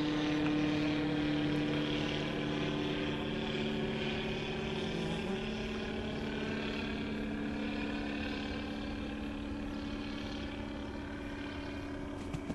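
Multirotor drone hovering, its propellers giving a steady hum of several close tones that shift slightly about five seconds in and slowly grow fainter.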